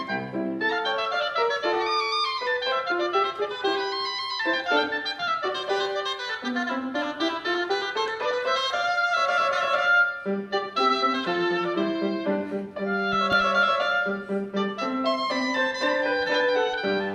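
Grand piano accompanying a solo melody line in a classical duet. About halfway through, the solo line makes a long, smooth rising glide before the piece carries on.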